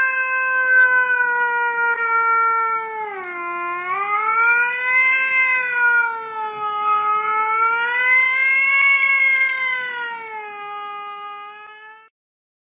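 A Scottish Fold cat giving one long, unbroken yowl that slowly wavers up and down in pitch, dipping about three seconds in. It cuts off abruptly near the end.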